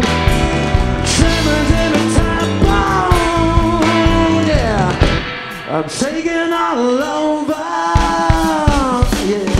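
Rock band playing live, with a voice singing over guitar, bass and drums. Pitched lines bend and slide down. About halfway through, the bass and drums drop out for roughly three seconds and then come back in.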